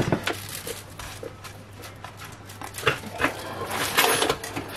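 Small tools and parts handled on a workbench as soldering of the socket tabs begins: a sharp click at the start, then scattered light clicks and taps over a faint low hum.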